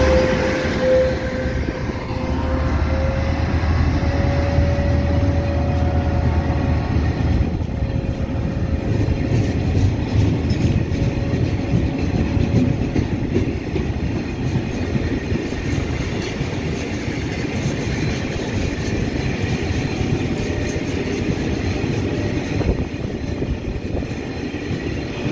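A State Railway of Thailand freight train of tank wagons rolling past, with steady wheel-on-rail rumble and clacking. A thin whine sounds through the first few seconds.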